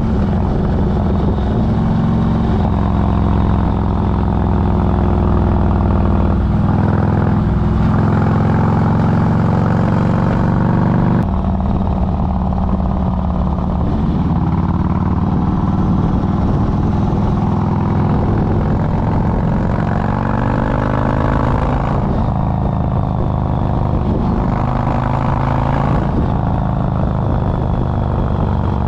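Motorcycle engine running at road speed, its pitch climbing and then dropping back at gear changes several times, under a steady rush of wind.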